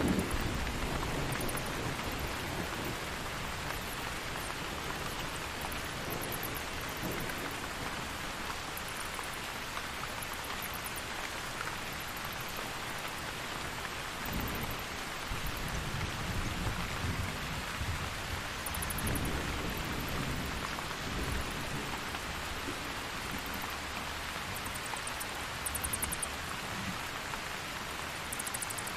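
Steady rain with low rolls of thunder: one fading away at the start, another swelling about halfway through and a third a few seconds later. Several times, brief very high chittering of bats.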